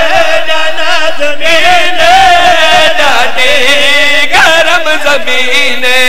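A man's voice chanting a mourning lament in long, wavering, held melodic lines, with no clear words. It is the zakir's sung recitation of grief.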